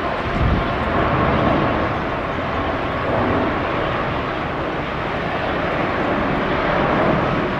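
Jet engines of a Boeing 787 airliner at takeoff power: a steady, loud roar. Wind buffets the microphone in gusts, strongest about half a second in.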